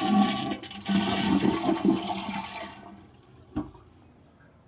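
A toilet flushing: a rush of water that dies away about three seconds in. One sharp click follows.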